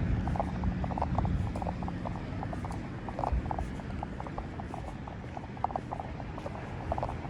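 City street ambience after rain: a steady low rumble of traffic under many quick, irregular light ticks and patters.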